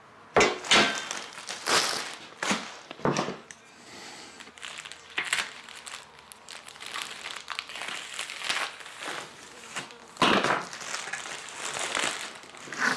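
Plastic packaging wrap rustling as it is cut open and pulled off a bundle of steel stand parts, loudest about ten seconds in. A few sharp knocks in the first three seconds as the steel parts are handled on the bench.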